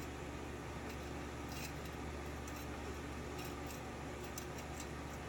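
Light, scattered clicks and taps from handling a lock cylinder and small tools, over a steady low electrical hum.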